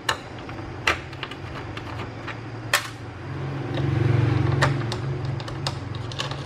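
Chef's EH-DIH2000A induction cooktop switched on for testing: a steady low hum, most likely its cooling fan, that swells about three seconds in, with sharp clicks every second or two. The repairer suspects its power supply is putting out too little voltage.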